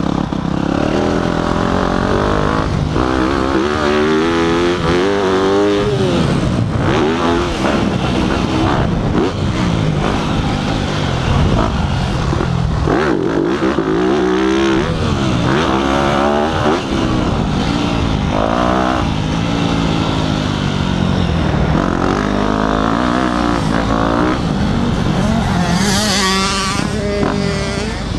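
Dirt bike engine revving up and dropping back again and again as the rider works the throttle around a motocross track, with a sharp climb to a high rev near the end.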